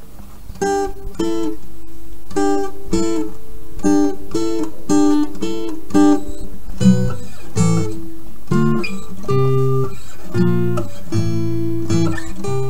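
Background music: acoustic guitar strumming chords in a steady rhythm, about two strokes a second, with lower notes joining partway through.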